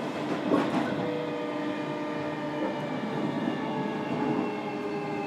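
JR Kyushu 305 series electric train heard from inside a motor car while running: the Toshiba permanent-magnet synchronous motors and VVVF inverter give several steady whining tones over the rumble of wheels on rail. A brief knock from the wheels comes about half a second in.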